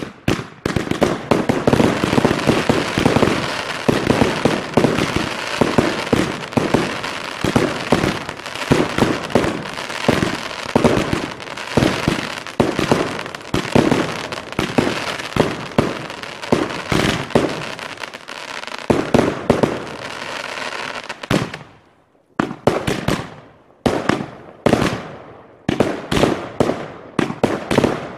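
Fireworks going off all around: a dense, continuous barrage of bangs and crackling from rockets bursting overhead. After a brief lull about three-quarters of the way through, the bangs come back one by one with gaps between them.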